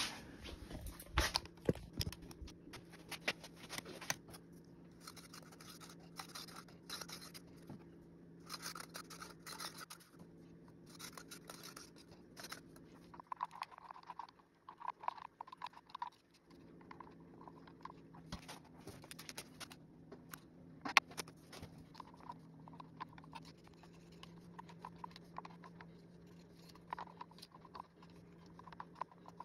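Irregular scraping and light tapping of a stir stick in a plastic cup as epoxy resin is mixed with mica powder, with one sharper knock about two-thirds through. A faint steady hum runs underneath.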